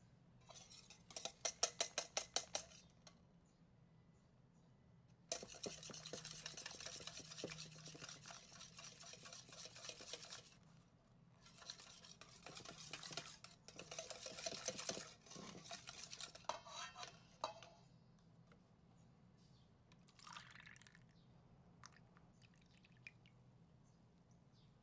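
Whisking in a mixing bowl: a short burst of fast, even clinking strokes near the start, then two longer spells of continuous whisking through liquid batter, tailing off into a few light clinks.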